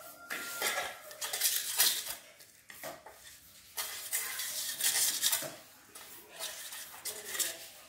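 Fingers wiping thick spice paste off a stainless steel plate: a run of irregular scraping strokes, with the metal plate rattling as it is tilted and handled.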